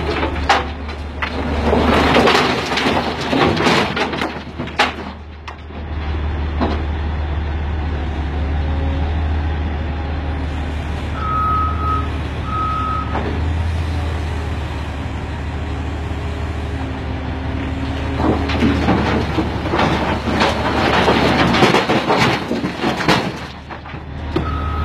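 Cat 988K wheel loader dumping rock into a steel dump-truck bed: rocks crash and tumble at the start and again near the end, over the loader's steady diesel engine. Around the middle, a reversing alarm beeps twice.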